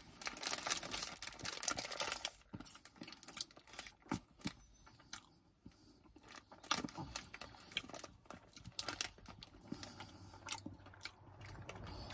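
Close-up eating sounds: a wafer ice-cream cone being bitten and chewed. There is a dense run of crunching and crackling in the first couple of seconds, then scattered crunches and smacks.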